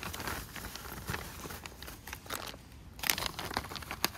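Plastic packaging of a Russian flameless ration heater bag crinkling and crackling as it is handled, with a few sharper crackles about three seconds in.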